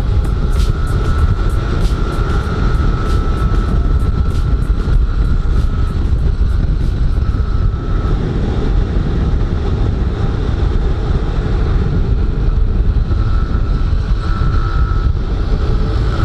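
Motorcycle riding at cruising speed: engine running steadily under a heavy wind rumble on an action-camera microphone, with scattered light clicks in the first half.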